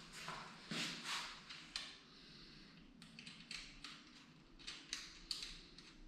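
Faint handling noises from work on a motorcycle: a few short rustles, then a quick run of light clicks and taps.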